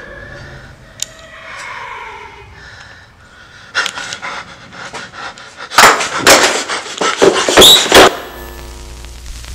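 A person's rapid, heavy panting on the move, growing into loud ragged bursts of breath and commotion, which cut off abruptly about eight seconds in and give way to a low electronic hum.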